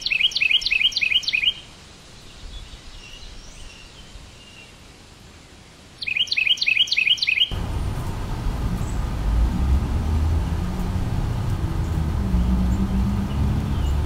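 Carolina wren song: a rapid run of repeated down-slurred phrases lasting about a second and a half, heard twice, the second run about six seconds in. After the second run a low, steady rumble of background noise continues.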